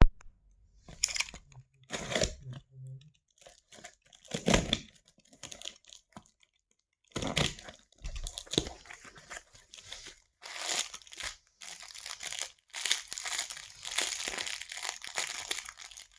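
Packaging being torn open and crinkled by hand during an unboxing: scattered rustles and tears at first, then near-continuous crinkling from about seven seconds in.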